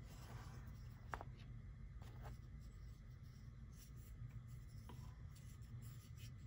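Faint handling noise of a folding pocket knife in the hand: a soft rub, then a light click about a second in and a couple of fainter ticks, over a low steady hum.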